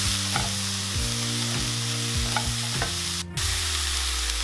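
Sliced peppers, onion and bean sprouts sizzling in a frying pan as they are stirred with a wooden spatula, with low sustained notes shifting in pitch underneath. The sizzle drops out briefly about three seconds in.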